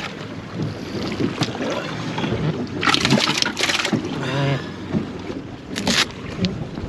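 Wind buffeting the microphone and choppy water lapping at the hull of a small drifting boat, with louder rushes of noise about three seconds in and again near the end.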